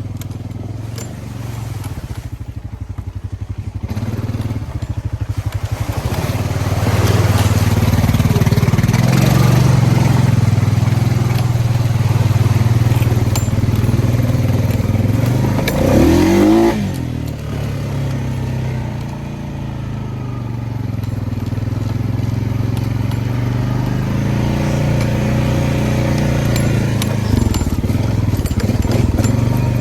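Honda Rubicon ATV engine running under load through mud, building up over the first few seconds and holding loud. About 16 s in it revs up sharply, then drops back and runs steadily again.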